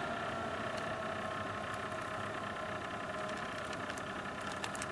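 Mosquito Magnet Patriot Plus's blower fan running steadily with a humming tone, with a few faint ticks near the end. The gas solenoid does not click open: it is not triggering.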